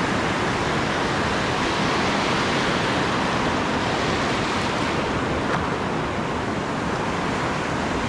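Ocean surf: waves breaking and foamy water washing through the shallows, a steady rushing noise.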